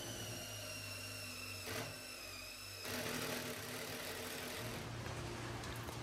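Cordless drill boring a hole down into the end grain of a wooden log post, its motor running steadily with a thin, high whine. About three seconds in the sound turns rougher and noisier as the bit cuts.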